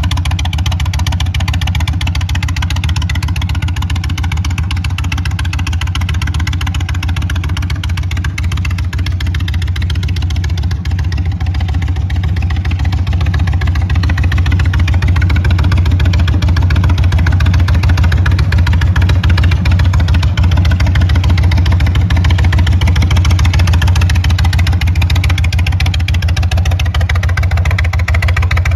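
2022 Indian Chief's Thunderstroke 116 V-twin idling steadily through a Freedom Performance Sharp Curve exhaust, a loud, deep note that grows a little louder from about halfway.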